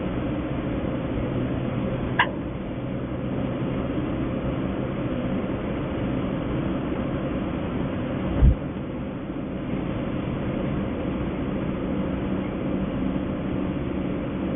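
Steady engine and road noise of a car driving on a paved highway, heard from inside the cabin. A short sharp tick comes about two seconds in, and a single low thump comes about eight seconds in.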